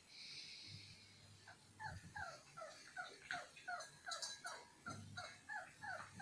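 Whippet puppy whimpering: a rapid string of short, high-pitched falling whines, about three or four a second, starting about a second and a half in.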